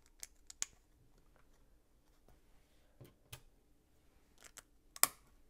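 Small plastic LEGO pieces clicking and tapping as they are handled and pressed together: a handful of scattered sharp clicks, the sharpest about five seconds in.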